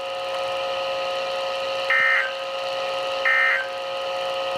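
NOAA Weather Radio's end-of-message EAS (SAME) data bursts, marking the end of the alert: two short buzzy bursts about a second and a half apart, with a third starting at the very end, over a steady hum from the radio.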